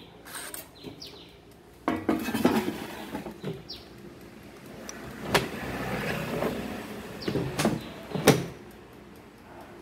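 Clinks, knocks and rattles of small hard parts and tools being handled during an air fryer repair, with a burst of clatter about two seconds in and three sharp taps in the second half.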